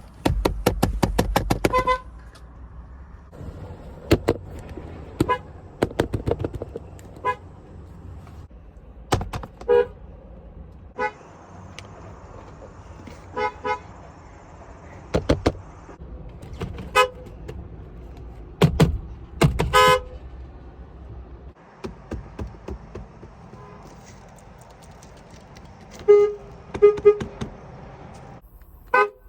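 Car horns from a series of different American cars, honked one after another as short taps and beeps, many of them quick, a rapid run of them near the start and a couple of longer honks near the end. A steady low rumble of engine or outdoor noise runs between the honks.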